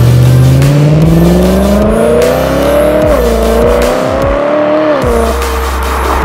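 BMW E93 M3's V8, fitted with a Remus aftermarket exhaust, accelerating away hard: the pitch climbs steadily, drops sharply at an upshift about three seconds in, climbs again, and drops once more about five seconds in before fading.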